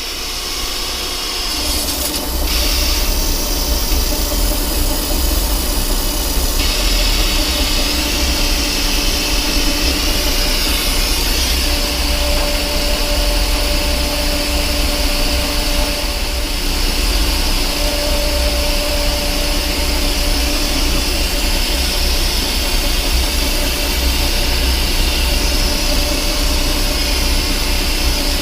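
Metal lathe taking a heavy roughing cut on a steel shaft with a carbide insert: the machine runs steadily under load, a low rumble with a steady hum and a high hiss.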